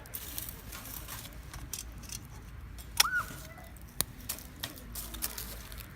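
Wood campfire crackling, with scattered sharp pops. The loudest pop comes about three seconds in, along with a brief squeaky chirp.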